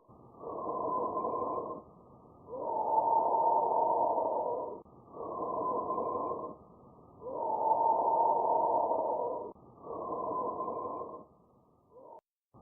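Bronchial breath sounds heard over the trachea: about three breath cycles of noisy airflow, each with a shorter, quieter inspiration, a brief pause, and a longer, louder expiration, expiration being the more prominent phase.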